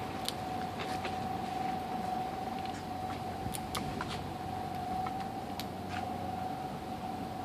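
Steady mechanical hum: a constant mid-pitched whine over a low rumble, with scattered faint sharp clicks.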